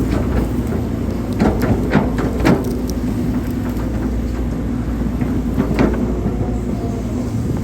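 Hydraulic excavator's diesel engine running steadily under load, with sharp metallic clanks: three in quick succession in the first few seconds and another about six seconds in.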